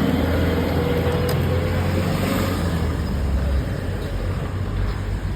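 City street traffic with a large vehicle's engine running close by. Its low hum eases off about two-thirds of the way through.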